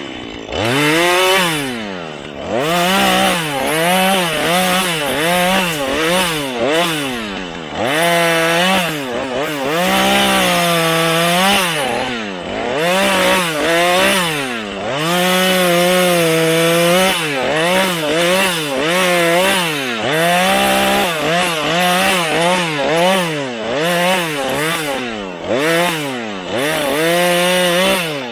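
Husqvarna 435 two-stroke chainsaw revving up and down over and over while cutting wood, its pitch sagging and holding under load, then climbing again. Right at the end the revs drop away.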